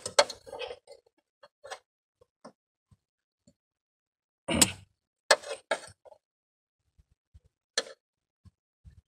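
Scattered metallic clicks and clinks of a hand tool working a spring-type radiator hose clamp, with a sharp clatter about halfway through and another near the end.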